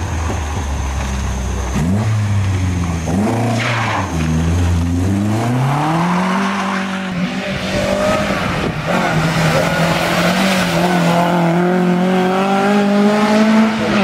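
Ford Escort Mk1 rally car's four-cylinder engine revving hard at stage speed. Its pitch drops and climbs several times through gear changes in the first few seconds, then holds high and slowly rises.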